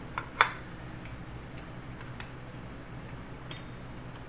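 Metal parts clinking as a metal tool is set down by the water pump on a concrete floor: a light click, then a sharp loud clack about half a second in, followed by a few faint ticks. A steady low hum runs underneath.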